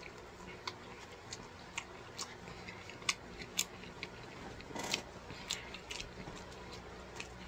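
A person chewing a mouthful of taco with the mouth closed: faint, irregular small wet clicks about twice a second, with one louder smacking noise about five seconds in.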